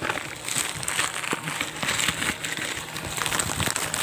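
Plastic packaging crinkling and rustling in a run of irregular crackles as it is worked open by hand.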